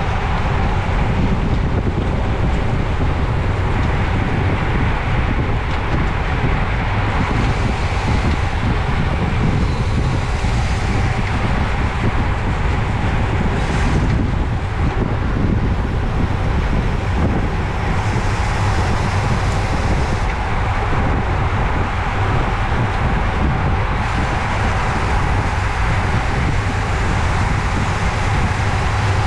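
Steady wind noise buffeting a bike-mounted camera's microphone while riding at race speed, a constant low rumble with hiss.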